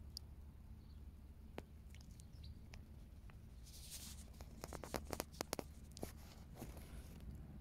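Faint clicks and rustles over a low, steady background rumble: a soft rustle about four seconds in, then a quick run of small sharp clicks about five seconds in.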